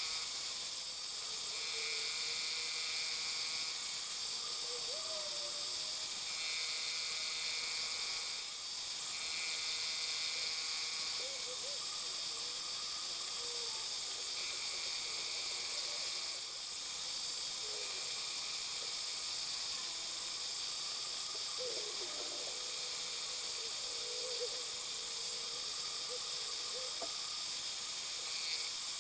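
Harbor Freight mini-mill running, its end mill cutting tangential passes into a brass rod held in a dividing head. A steady high whine and hiss, with an added tone that comes and goes every few seconds as each pass cuts.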